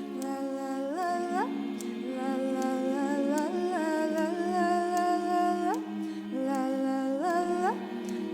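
An a cappella vocal group humming wordless held chords, with the upper voice sliding up into a new note about three times.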